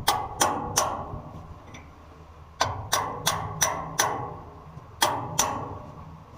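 Hammer blows on metal in quick runs of about three a second: three blows at the start, five from about two and a half seconds in, and two near the end. Each blow rings briefly.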